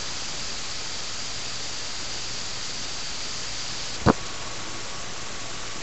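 Steady hiss of a low-quality camera recording with no speech. About four seconds in there is a single sharp click, where the hiss's faint high whistle ends and a new recording begins: an edit splice between shots.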